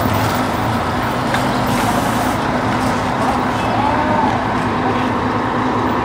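A motor vehicle running along a street, with a steady engine hum under road and traffic noise.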